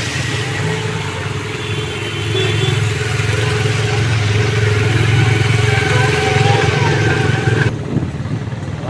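A motor vehicle engine running steadily under a wide hiss, with the hiss cutting off abruptly near the end.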